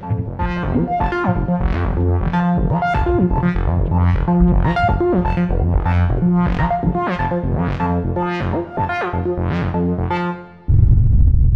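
Electronic synthesizer intro music: a steady deep bass under keyboard notes struck about twice a second. Near the end the music cuts off and a loud, deep rumble takes over.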